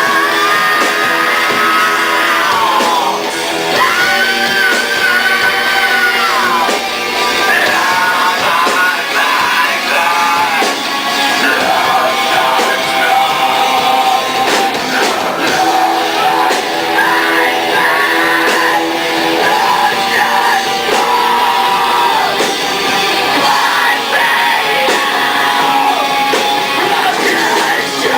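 Rock music played loud: electric guitar with singing over it.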